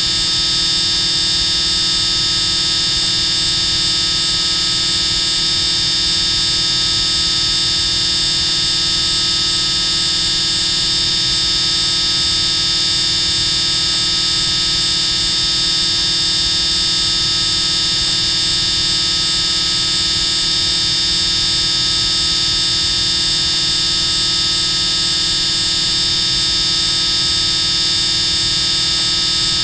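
Extremely loud, continuous buzzing, steady and unchanging, with a harsh, high-pitched edge.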